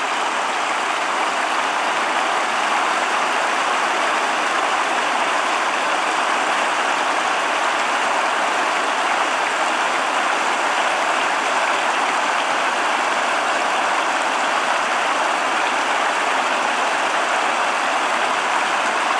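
Mountain creek water rushing steadily over a small rock cascade.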